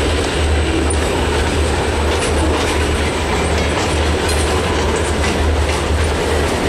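Freight cars loaded with logs rolling past at steady speed: steel wheels rumbling and clattering over the rail joints.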